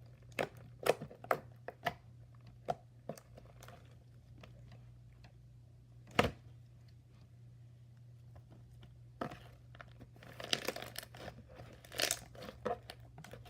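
Homemade slime being squished and played with by hand, giving scattered sharp pops and clicks, with a busier run of crackling pops near the end.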